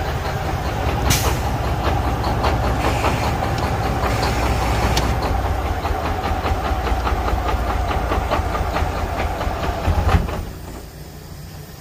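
Detroit Series 60 14.0 L diesel idling roughly, heard from inside the cab, with a regular sharp ticking over its rumble; it is running poorly because of leaking fuel injectors stuck open. The sound drops away sharply about ten seconds in.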